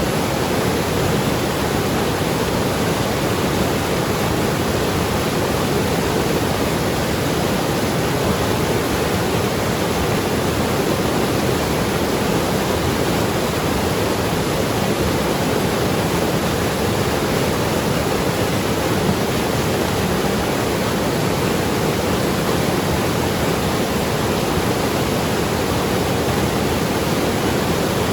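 Mountain river rushing and gurgling over rocks, a steady, unbroken wash of water noise.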